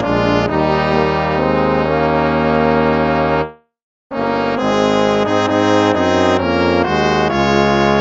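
Hymn tune played on brass instruments in slow, held chords. It stops for about half a second around three and a half seconds in, then the next phrase begins.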